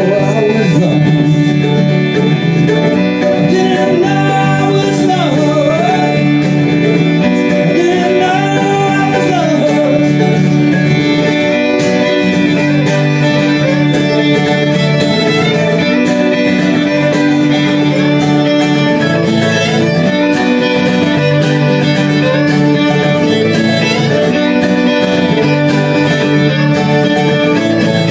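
Live acoustic music: a steadily strummed acoustic guitar under a melody line that glides up and down, with no speech.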